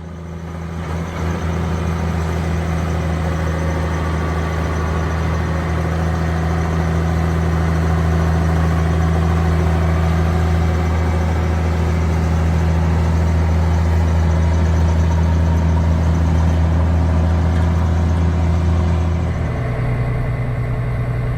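Large diesel engine of a harvesting machine running steadily with a deep, even drone. Near the end its tone changes and it gets a little quieter.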